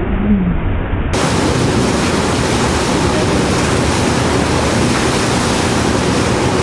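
Loud, steady rush of a boat's churning wake water mixed with wind buffeting the microphone. About a second in, the sound cuts abruptly to a brighter, fuller hiss.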